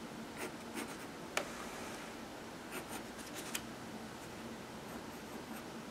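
Fine-line pen scratching over sketchbook paper in short, scattered strokes, with one sharp tick about a second and a half in. A faint steady hum lies underneath.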